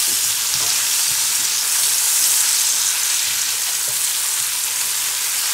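Sliced portobello mushrooms and onions sizzling in hot oil in a cast-iron skillet, a steady hiss, while a spatula stirs them.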